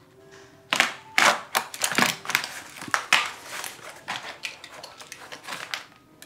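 Utility knife slicing and scraping through Schluter DITRA plastic uncoupling membrane to trim it at a door jamb: a quick, irregular series of short scraping cuts starting under a second in.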